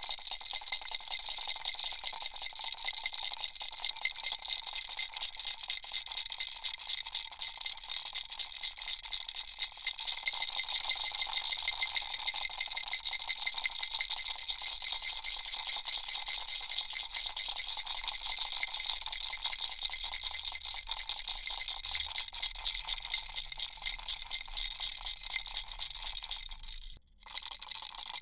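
Baby rattle shaken continuously, a dense fast rattling of many small clicks, cut by a brief silent gap near the end.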